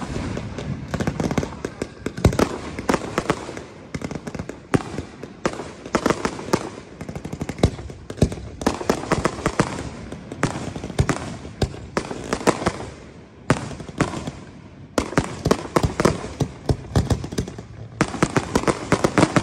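Fireworks display: a dense, rapid barrage of bangs and crackling as rising comets and aerial shells go off, broken by a few brief lulls.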